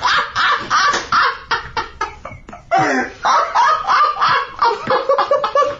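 Men laughing loudly in rapid bursts, breaking off briefly about two and a half seconds in, then laughing again.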